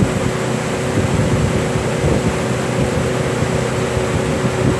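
Pontoon boat's motor running steadily at speed, a constant hum under the rush of wind on the microphone.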